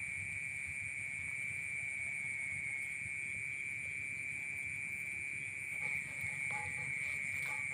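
Night insects chirring steadily in a high, even note, with a higher, rapidly pulsing trill above it. Faint distant voices come in near the end.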